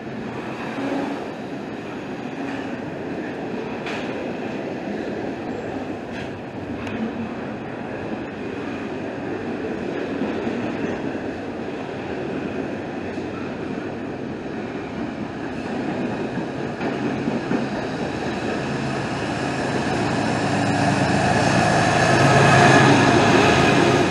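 Double-stack intermodal freight train rolling past, with a steady rumble and clatter of steel wheels on rail. It grows louder over the last few seconds.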